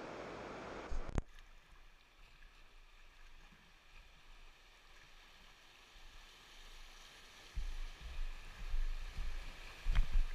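River water rushing and splashing around a kayak running a shallow riffle. The sound drops abruptly to a quieter rush about a second in, and from about eight seconds irregular low thumps of buffeting come in, with a few sharp ticks near the end.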